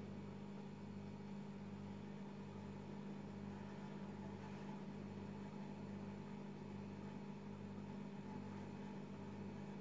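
A steady low hum that pulses evenly, a little faster than once a second.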